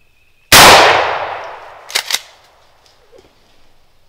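A single shotgun blast about half a second in, very loud, its echo fading away through the woods over about a second and a half. Two quick sharp clicks follow about a second later.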